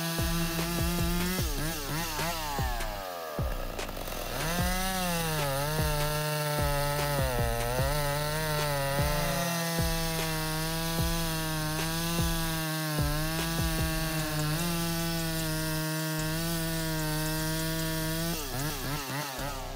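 Chainsaw running fast and cutting through wood. Its steady engine note sags several times as the chain bites into the cut, then picks back up.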